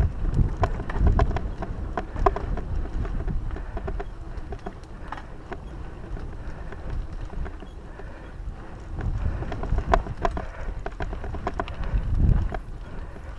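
Mountain bike riding over a rough dirt singletrack trail: tyres rolling on the dirt with a steady run of clicks and rattles from the bike, and wind rumbling on the microphone, with louder gusts about a second in and again near the end.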